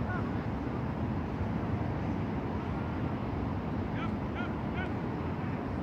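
Wind buffeting the microphone in a steady low rumble over open-field ambience. Three short, high calls come in quick succession about four seconds in.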